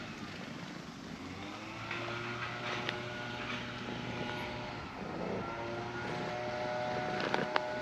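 A steady engine drone whose pitch shifts slightly, with a few sharp clicks near the end.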